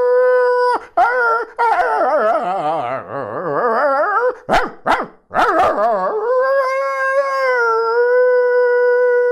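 A man's vocal mimicry of a dog howling a Telugu verse (padyam) as a song: long held howls, wavering up and down in the middle, broken by a few short breaths, ending on one long steady note.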